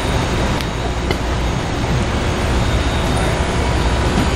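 Lippert Solera powered RV awning's electric motor running steadily, unrolling the new awning fabric as it extends.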